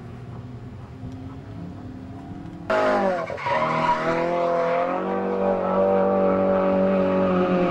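Drift car's engine running at high revs through a sustained slide, with tyre squeal. It is fainter at first, then much louder from about three seconds in. The engine note dips briefly there, then holds steady at high revs.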